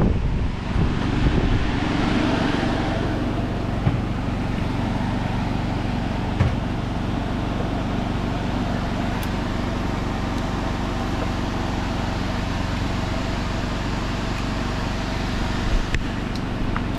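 A steady low mechanical hum, with a few light knocks and clicks during it.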